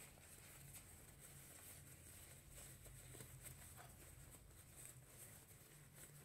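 Faint rustling and crinkling of thin nylon fabric, with scattered soft clicks, as a packing cube is scrunched and stuffed into its own pouch by hand, over a low steady hum.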